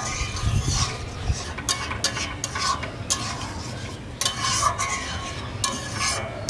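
A metal spoon stirring and scraping inside a cooking pot as boiled lentils (dal) are mixed into the spices, with irregular scrapes and clinks against the pot.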